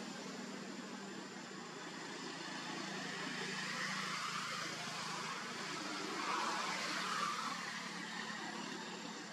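Steady background hiss with a low steady hum, swelling a little louder about six seconds in.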